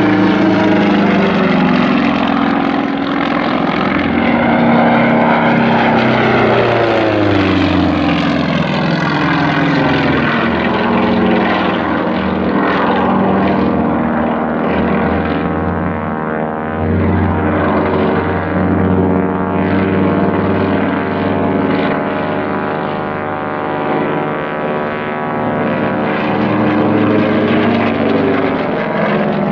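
Propeller engine of an aerobatic biplane running at high power overhead, its pitch sliding down and back up over several seconds as the plane climbs, turns and dives.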